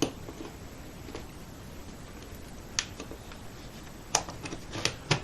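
A few sharp plastic clicks and taps, seconds apart with a small cluster near the end, from handling the docking station's power cable and mains adapter while hooking up the power.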